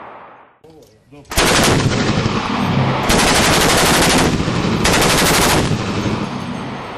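Automatic weapon firing three long, rapid bursts, the loudest sound, with a rolling echo trailing off after the last.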